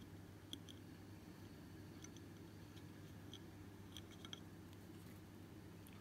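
Faint, light clicks and taps, about half a dozen scattered over several seconds, as candy sticks are handled and knock against a plate, over a low steady room hum.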